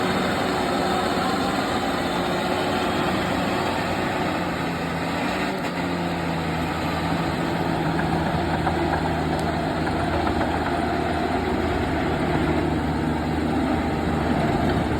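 Komatsu D70LE bulldozer's diesel engine running steadily, its pitch dropping slightly about six seconds in.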